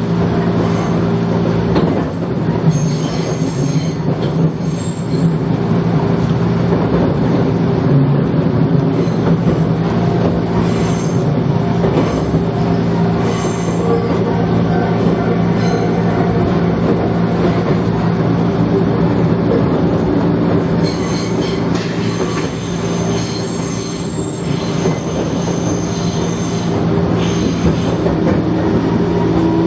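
Small electric local train running along the track: a steady motor hum with wheel-on-rail noise, and high-pitched wheel squeal coming in at times.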